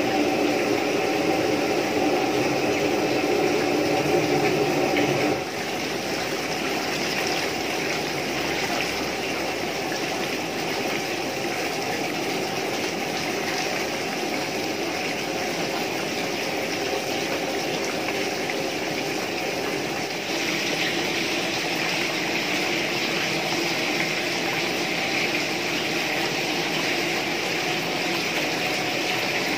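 Water running steadily from a hose into a large metal pot and splashing. Under it, a steady hum stops abruptly about five seconds in.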